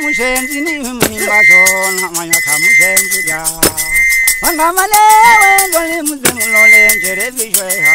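Live traditional dance music: a whistle blown in short, even blasts in time with the beat, over group singing, drumming and gourd shakers.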